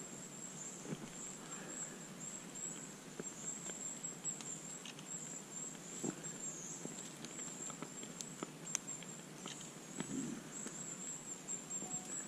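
Faint footsteps and rustling in wet fallen beech leaves, then quieter handling noises and scattered small ticks as a person crouches in the leaf litter. A thin, steady high-pitched tone runs underneath.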